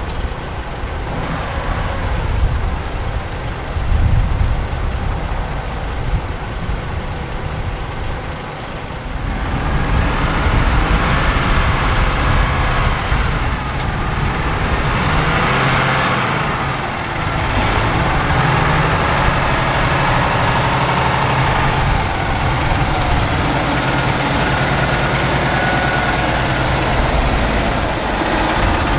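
Heavy truck's diesel engine running as it hauls a house load at low speed, getting louder and fuller about nine seconds in as it pulls closer.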